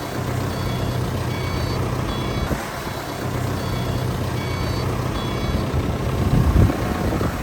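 Reversing alarm on a heavy vehicle beeping about twice a second over a steadily running engine, with a louder low rumble from the machinery near the end.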